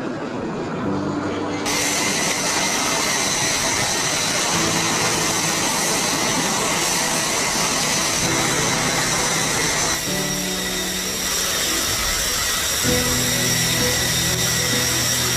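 High-pitched steady whine of an F-35's Pratt & Whitney F135 turbofan as the jet rolls along the runway and taxis, coming in sharply about two seconds in. Background music with slow, held low notes runs underneath.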